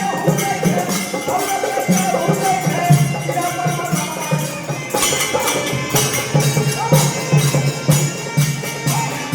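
Devotional song: a voice singing over a steady drum beat and jingling percussion like a tambourine.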